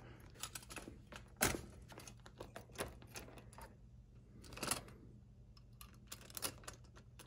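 Scattered small clicks and taps of a model steam locomotive and its tender being set onto the track by hand, the wheels knocking on the rails, with two louder clicks about 1.5 s and 4.7 s in. A faint steady hum runs underneath.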